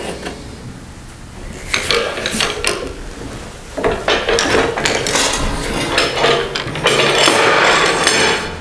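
Manual sheet-metal folding brake being worked to bend a steel plate: a few metallic knocks and clanks as the plate is clamped and the folding leaf moves, then a longer, louder stretch of metal rattling and scraping near the end as the fold is made.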